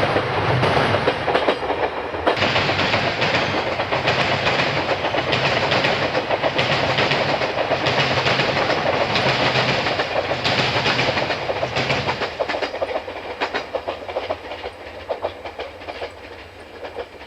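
Electric train passing close by, its wheels clacking in a steady rhythm over the rail joints; from about twelve seconds in the sound fades as the train draws away.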